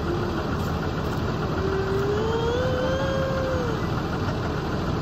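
School bus engine idling with a steady low rumble while the wheelchair lift platform lowers. About one and a half seconds in, a wavering tone rises and then falls for about two seconds.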